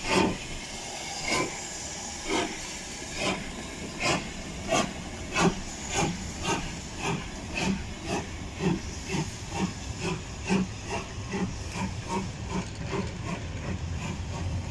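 LMS Jubilee class steam locomotive 45596 Bahamas accelerating away with a train: sharp exhaust beats from the chimney, about one a second at first and quickening to around three a second, over a steady hiss of steam. Near the end the beats fade under the low rolling of the coaches passing.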